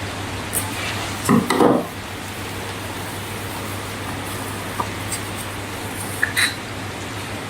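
Slime being handled and stirred: a short cluster of sticky handling sounds about a second and a half in, then a few light clicks, over a steady hiss and low hum.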